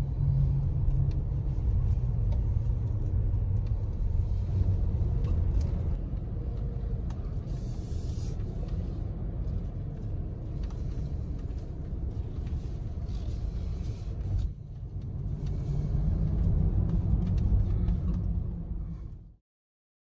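Honda car's engine and road rumble heard from inside the cabin while driving: a steady low rumble that dips briefly and swells again, then cuts off just before the end.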